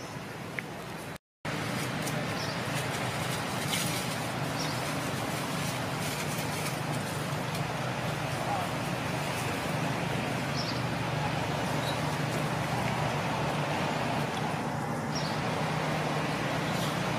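Steady outdoor background hum like distant road traffic. The sound cuts out completely for a moment about a second in.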